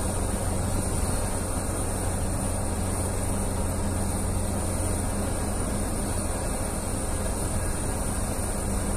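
Heavy diesel earthmoving machinery running steadily: a constant low engine drone under an even hiss, with no change in pitch or level.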